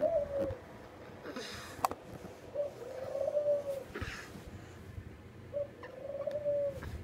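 An animal calling three times, spaced a few seconds apart. Each call is a drawn-out, slightly arching note about a second long, with a few handling clicks between them.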